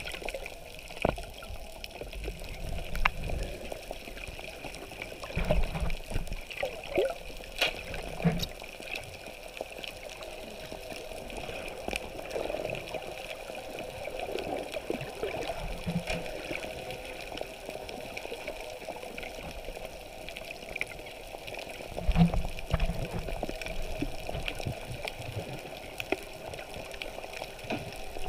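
Muffled underwater ambience picked up by a camera submerged in the sea: a steady watery rush with scattered sharp clicks and a few low thumps, the loudest about three-quarters of the way through.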